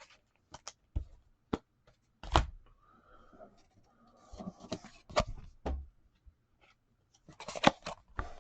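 Scattered light taps and clicks with brief soft rustling as sports cards are handled and set down.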